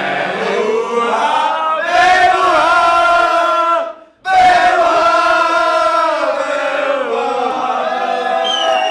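A group of people singing an anthem together on long held notes, loud, breaking off briefly about four seconds in before carrying on.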